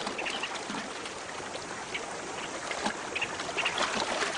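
Shallow river water splashing and trickling as a hippopotamus mother and her newborn calf move in it, with scattered short high chirps over the water noise.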